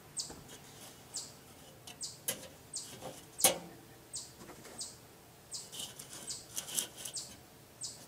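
A songbird repeating short, high, falling chirps, with a few sharp metal clinks as the hinged section of a kettle grill's cooking grate is lifted and set back down. The loudest clink comes about three and a half seconds in.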